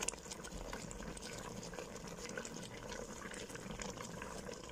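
Thick curry sauce bubbling steadily around a whole chicken in a pot, with many small pops, as it simmers down to reduce the liquid.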